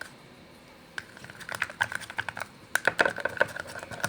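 Slime mixture being stirred in a bowl as borax water is worked in, the glue starting to set: quick, irregular, sticky clicking that begins about a second in.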